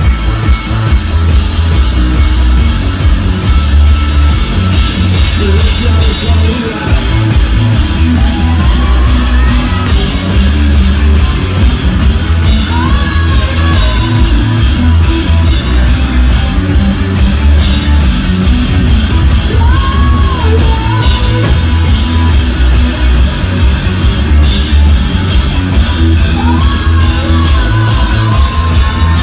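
Live rock band playing loud, with a heavy, pulsing bass and drums and a voice singing over it at times.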